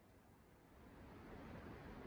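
Near silence: faint, even room noise comes up about a second in.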